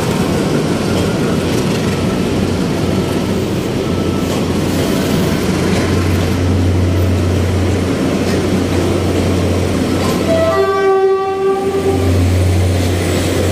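Loud steady rumble of a train running on rail, with one horn blast of about a second near the end.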